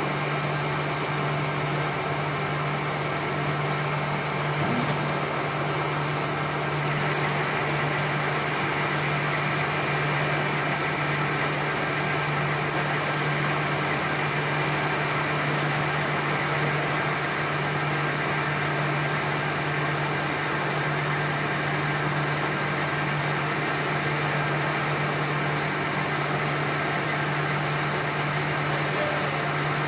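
Shop machinery running steadily: a constant low hum under a broad hiss. About seven seconds in, a higher hiss joins and holds.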